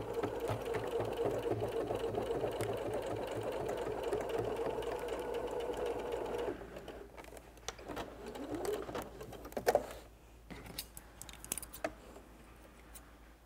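Pfaff electric sewing machine stitching steadily through thick layers of denim, stopping about six and a half seconds in. A short rising whir follows, then a few light sharp snips near the end as the threads are cut with scissors.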